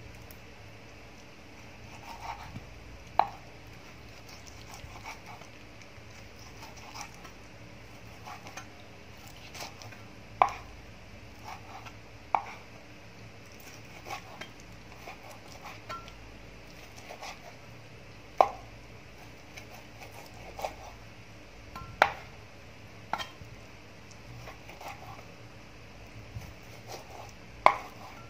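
Cleaver cutting raw beef into small pieces on a wooden chopping board: irregular knocks of the blade hitting the board every second or few, about half a dozen much louder than the rest, with softer cuts in between.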